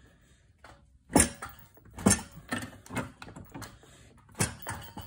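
Sharp metal clicks and clanks from a pipe wrench being worked in short strokes on a threaded pipe fitting clamped in a bench vise, as the fitting is tightened. There are two strong knocks, about one and two seconds in, followed by several lighter clicks.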